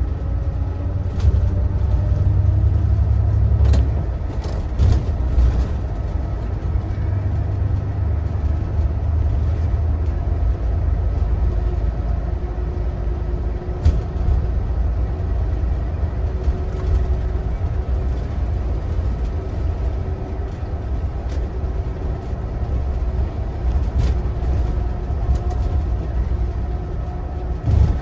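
Mitsubishi Fuso Aero Ace bus on the move, heard from inside the cabin near the front: steady engine and road rumble. The engine note rises over the first few seconds as the bus picks up speed, and a few short clicks or rattles come through now and then.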